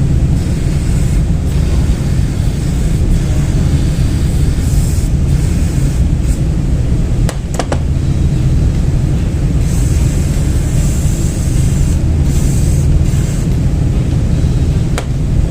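Aerosol brake cleaner sprayed in a few short hissing bursts onto brake pads, over a loud, steady low rumble, with a couple of sharp clicks about halfway through.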